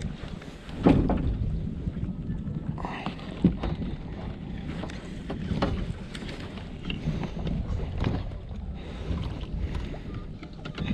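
Irregular knocks and bumps of gear against a small fishing boat's hull while the boat is worked free of a snag, over low wind rumble on the microphone. The loudest knock comes about a second in.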